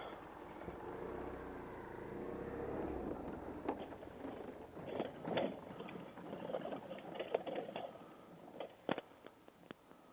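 Adventure motorcycle picking its way down a steep rocky drop: the engine runs low and steady for the first few seconds, then loose rock knocks and crunches in scattered bursts.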